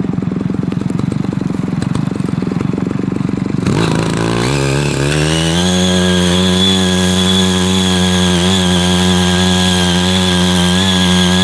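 Small petrol engine of a CY80 mini power tiller idling with a low, pulsing putter, then revving up over about two seconds, starting about four seconds in, and running steadily at high speed.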